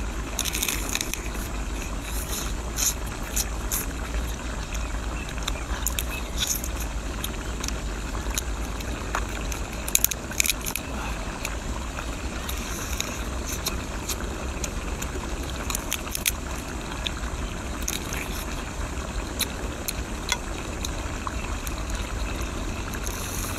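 Cooked brown crab shell and claw cracking and crunching as they are bitten and chewed, with irregular sharp cracks, the loudest about ten seconds in. A steady low rumble runs underneath.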